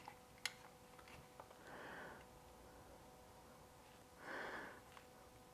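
Near silence: a quiet room with a faint steady hum, one sharp click about half a second in and a few faint ticks, and two short breaths through the nose.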